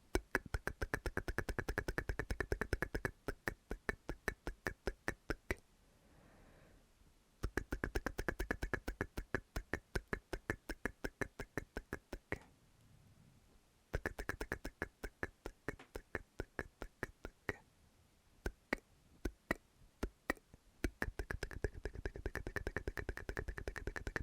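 Close-miked ASMR 'tk-tk' mouth sounds: rapid tongue clicks in runs of several seconds, with short pauses between the runs.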